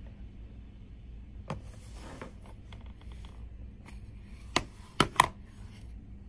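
Hard plastic digital caliper case being handled and snapped open: a couple of soft clicks, then three sharp clicks close together about five seconds in as the latch releases and the lid opens.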